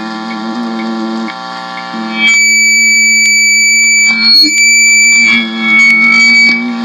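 A man humming steady low notes into a microphone held against his ear and played through an amp. High-pitched whistling tones come and go over the hum, which he takes for abnormal sounds from an implant in his ear.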